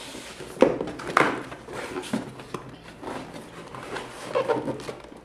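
Cardboard packaging being handled: an inner box scraping and sliding out of its snug outer sleeve, with a couple of sharp knocks about half a second and a second in.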